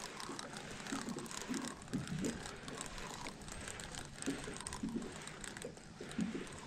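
Fishing reel clicking softly and irregularly while a hooked channel catfish is fought on the rod.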